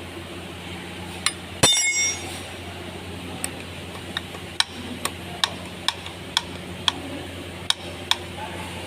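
Sharp metallic taps and clinks, most likely metal tools or parts knocking together. One loud ringing strike comes about one and a half seconds in, then a run of light taps about twice a second, over a steady low hum.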